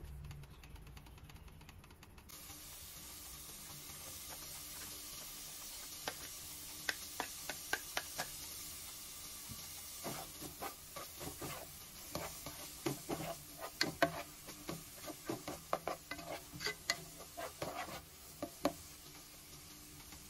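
Chopped onion sautéing in a metal pot, with a sizzle that comes up about two seconds in. A nylon spatula stirs it, scraping and clacking against the pot in quick runs of clicks, busiest in the second half.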